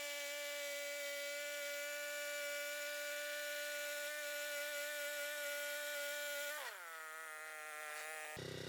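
Woodland Mills HM126 portable bandsaw mill cutting a black walnut log, a steady high whine with many overtones. A little under seven seconds in, the pitch falls as the mill winds down, and near the end the sound switches abruptly to a lower engine idle.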